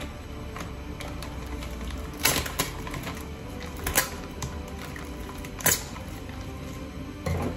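A knife stabbing and slitting the plastic film on a tray of packaged meat, giving several short, sharp plastic crackles.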